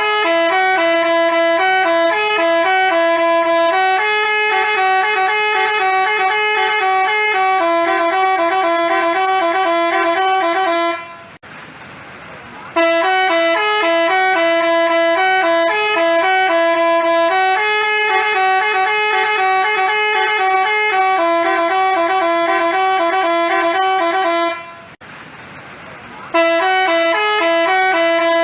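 Bus telolet basuri horn playing a tune of quickly changing held notes, in long phrases of about eleven seconds, stopping briefly twice before starting again near the end.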